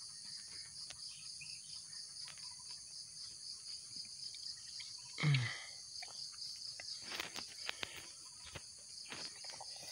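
Steady high-pitched chorus of insects buzzing. About halfway through comes a brief louder sound that falls in pitch, and there are a few faint clicks near the end.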